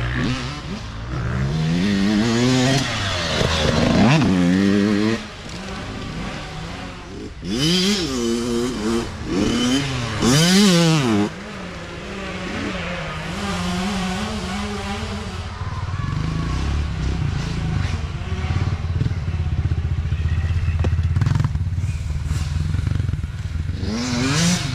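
Youth dirt bike engines revving as bikes ride past, the pitch climbing and dropping sharply several times in the first half. A steadier, lower engine note runs through the second half.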